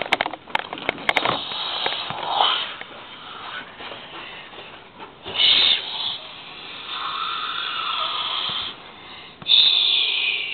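A child making breathy, hissing mouth noises close to the microphone, in several stretches of a second or so, the loudest near the end. A few sharp clicks come at the start.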